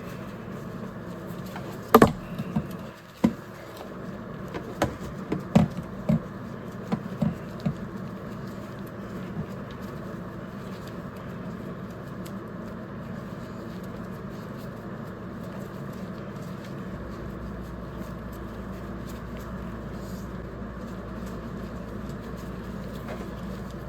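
Handling noise from cleaning a CB radio's coiled microphone cord: a dozen or so sharp knocks and clicks in the first several seconds, the loudest about two seconds in, then only a steady background noise.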